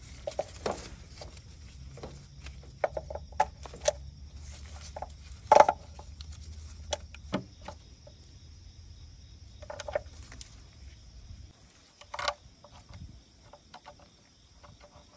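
Scattered clicks and knocks of wiring-harness connectors being pushed onto an engine ECM and tightened with a hand driver. The sharpest knock comes about five and a half seconds in, another near twelve seconds. A faint low hum underneath stops about eleven seconds in.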